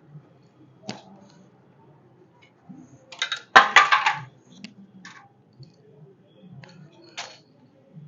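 Metal clinks of hand tools and loosened bolts, scattered sharp clicks with one louder clatter lasting about a second, a little past halfway through, during removal of the clutch cover bolts.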